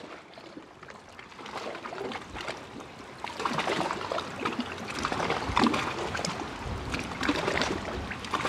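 Ocean surf: waves breaking and foaming on a beach, a rushing wash full of irregular splashes, fading in from silence and growing louder.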